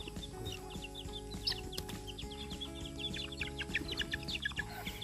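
A flock of young chickens (chicks) peeping in many quick, high-pitched chirps, overlapping continuously.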